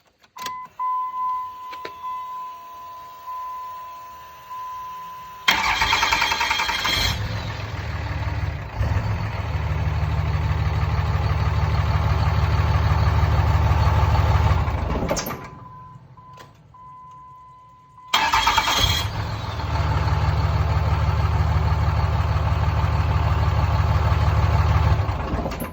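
2003 5.9-litre common-rail Cummins diesel being cranked and started twice, each start followed by several seconds of running before it is shut off. A steady electronic tone sounds before each start. The starter makes a noise that the owner finds odd.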